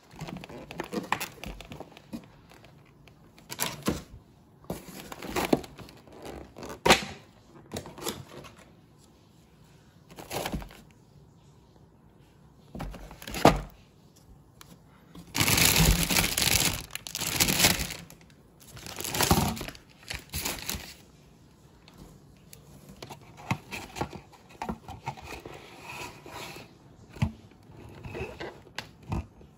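Plastic grocery packaging and bags crinkling and rustling as items are handled in a cardboard box, with scattered knocks from packages being moved. The loudest crinkling comes in two spells about halfway through.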